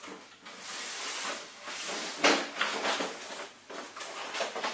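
A cardboard box being handled and slid on a wooden floor by a small child, with irregular scraping and rustling and a sharper knock about two seconds in, toys shifting inside the box.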